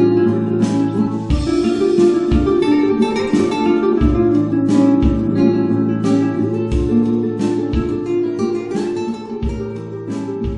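Background music on acoustic guitar: plucked melody notes over repeated strummed chords.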